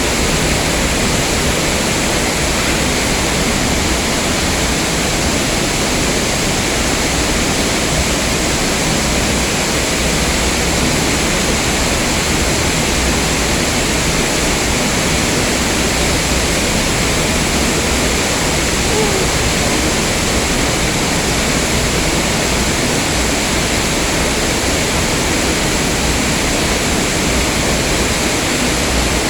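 Waterfall crashing close by, a loud, steady rush of falling water.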